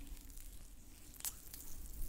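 Oiled hands rubbing in a massage, a soft wet squishing with a brief sharper click a little past the middle.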